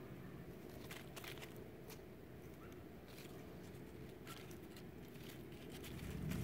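Dry fallen leaves crackling faintly in a few scattered, crisp bursts as a Pomeranian puppy noses and paws through them, over a low steady rumble that grows louder near the end.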